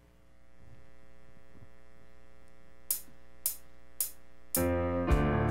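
A steady synth pad chord fades in and holds. Three evenly spaced sharp clicks count in, and the worship band starts a song with electric guitar.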